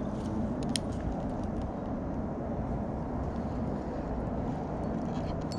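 Steady low rumbling background noise, with one sharp click about three-quarters of a second in.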